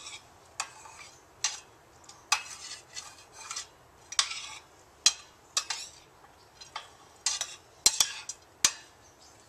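Large metal spoon stirring damp cornbread dressing in a metal frying pan: irregular clinks and scrapes against the pan, roughly one or two a second.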